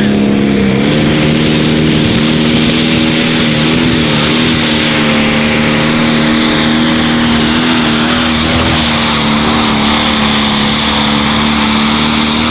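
Pro Stock pulling tractor's turbocharged diesel engine running at full throttle under heavy load as it drags the weight sled. Its pitch rises slightly about a second in and then holds steady, with a thin high whistle above it.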